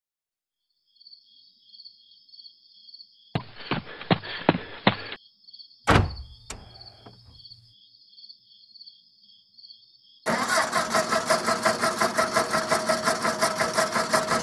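Night insects chirping with a steady high pulse, a few quick knocks, then a single loud car-door slam. Near the end a car engine starts abruptly and runs with a fast, even pulse.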